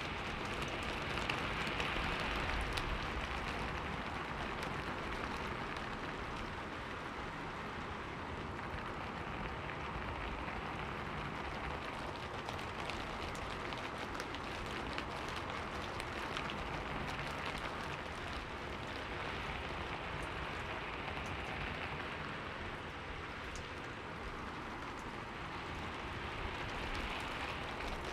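Steady rain falling, an even hiss of many drops that swells slightly a few times.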